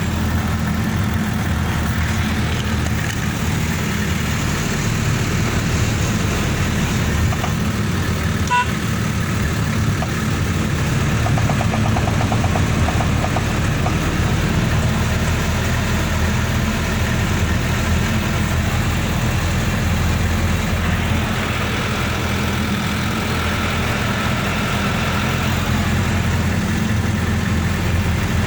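Motor vehicle engine running steadily with a continuous low rumble. There is one brief pitched beep about eight seconds in.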